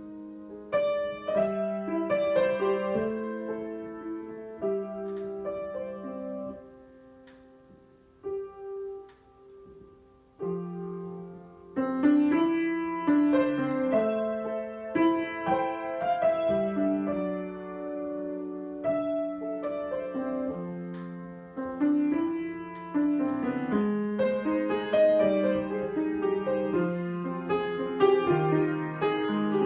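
Solo piano improvisation: slow held chords that thin out to a few soft notes, then louder, busier playing with moving chords from a little before halfway on.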